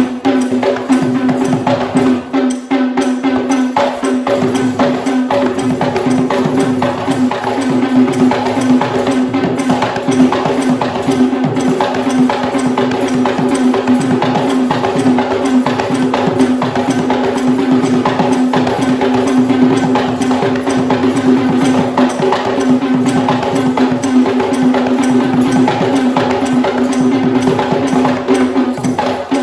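Fast, dense drumming for a Kandyan dance on traditional Sri Lankan drums, over a steady held tone.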